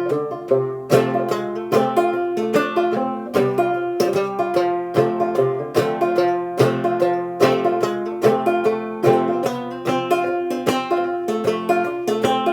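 Banjo played clawhammer style: a steady, rhythmic stream of brisk plucked notes with a recurring ringing drone note.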